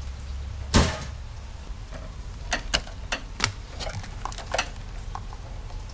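A sharp knock about a second in, then a run of light clicks and taps from gloved hands handling the wiring and metal parts of a dismantled window air conditioner, over a steady low rumble.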